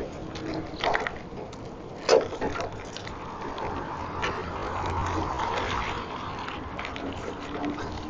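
Street traffic noise: a passing vehicle swells and fades about halfway through. Two short, sharp knocks come in the first two seconds.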